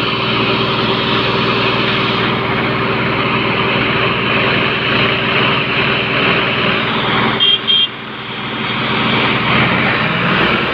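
The diesel engines of a Sonalika 745 and a Mahindra 265 DI tractor running hard under heavy load as the two tractors pull against each other, chained together. Two short high-pitched beeps about seven and a half seconds in.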